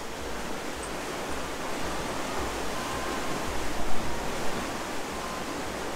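Canal lock filling: water rushing in through the open paddles as a steady rushing noise, with an uneven low rumble underneath.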